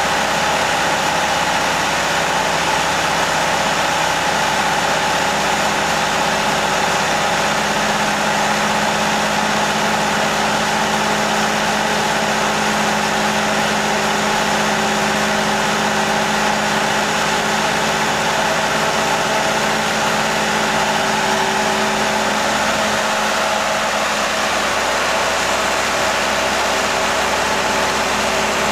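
Boat-lifting hoist's engine running steadily, a continuous mechanical drone whose tone shifts slightly about twenty seconds in.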